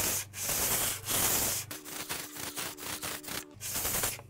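600-grit wet-or-dry paper lubricated with WD-40 being rubbed by hand over the cast-iron deck of a Ford 302 V8 block, cleaning old gasket material out of the machining grooves. It starts with long back-and-forth strokes. From about two seconds in come quicker, shorter strokes at about four a second, then one more long stroke near the end.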